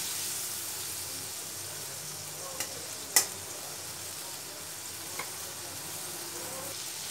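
Tomato, chilli and spice masala sizzling steadily in mustard oil in a steel kadai, easing a little over the first seconds, with a few sharp clicks, the loudest about three seconds in. The masala is being fried down until the oil separates.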